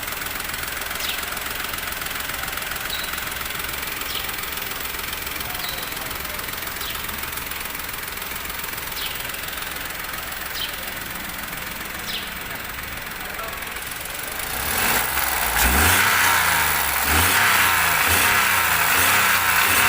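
Freshly overhauled Volkswagen Polo 1.2 petrol engine idling steadily and firing well, then revved up about fourteen seconds in and held at a higher, louder speed.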